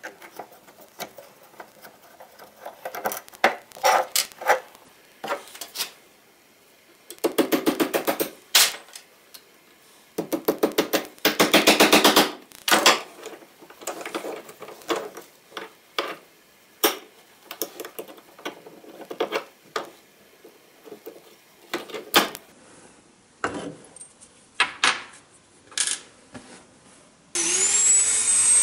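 Metal parts of a no. 4 hand plane's frog being handled and worked with a screwdriver: scattered clicks and scrapes of metal on metal, with two bursts of rapid scrubbing about 7 and 11 seconds in. Near the end a handheld rotary tool spins up, rising briefly in pitch and then running at a steady whine.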